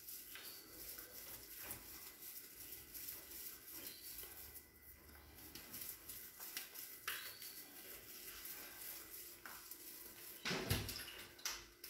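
Wet hands shaping cooked rice into arancine: faint, scattered soft pats and squelches, with a louder thump near the end.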